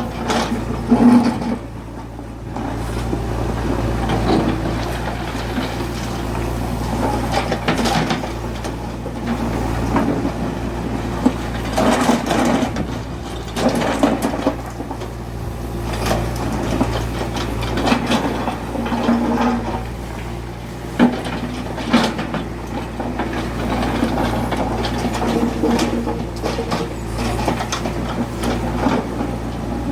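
JCB 3DX backhoe loader's diesel engine running steadily while it digs and loads, with irregular knocks and clanks of the working bucket and arm.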